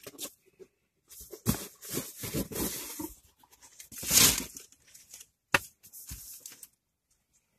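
A subscription box being torn open by hand: irregular tearing and rustling, loudest about four seconds in, with a sharp snap a little later, then it goes quiet.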